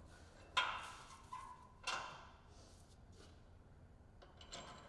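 A few short, light clicks and knocks, about half a second apart in the first two seconds, then fainter ticks: screws and mounting hardware being handled as a winch assembly is loosely fastened to a bumper.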